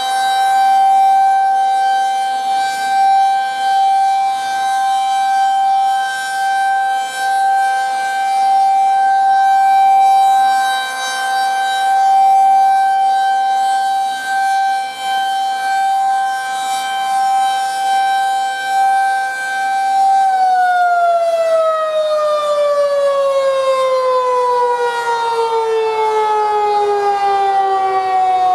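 Federal Signal 2001-SRN rotating outdoor warning siren sounding one steady, loud tone with the loudness wavering. About 20 seconds in it starts winding down, the pitch sliding steadily lower as the rotor slows at the end of the test signal.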